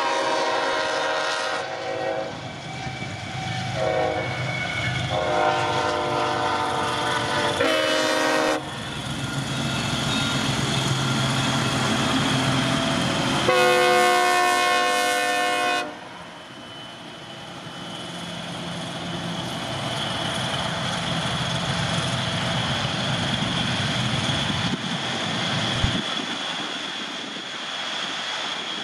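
Diesel locomotive multi-chime air horns on a CSX SD23T4 sounding a series of long and short blasts, then a second blast from the unit's rear horn about halfway through. Between and after the blasts, the diesel engines and the wheels on the rails rumble steadily as the locomotives pass.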